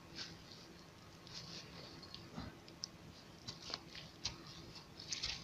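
Faint rustling in dry grass with a scatter of light, sharp clicks, most of them in the second half.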